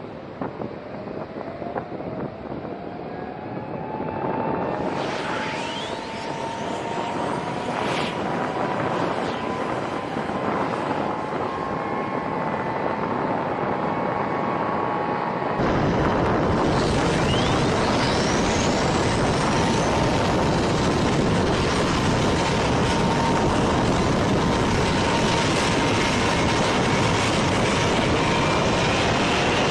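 B-52H bomber's Pratt & Whitney TF33 turbofan engines starting up: turbine whines rising in pitch as the engines spool up, over a building rush of jet noise. The noise steps up suddenly a little past halfway and stays loud, with a high whine still climbing.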